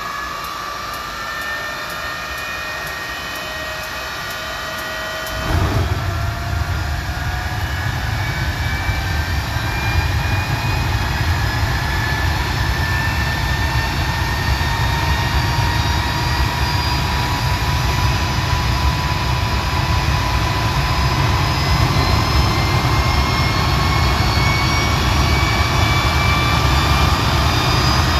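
Walter Motorlet M701C-500 turbojet starting. The engine spins up with a rising whine and a fast ticking. About five seconds in, a heavy low rumble cuts in suddenly as the engine lights off. The whine then keeps climbing as the engine accelerates, growing louder toward the end.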